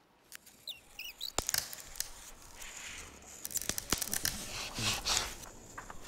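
A few short high chirps about a second in, then small dry rustling and crackling noises with several sharp clicks, cartoon foley for the little bird and its dry leaf.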